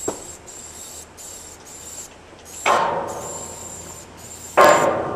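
Aerosol spray paint can hissing in short bursts as a piece is painted on a freight boxcar. Two sudden loud clanks ring out, about two and a half and four and a half seconds in.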